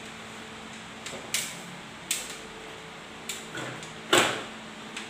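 A run of sharp knocks and clanks from objects being handled and set down during installation work, the loudest about four seconds in, over a faint steady hum.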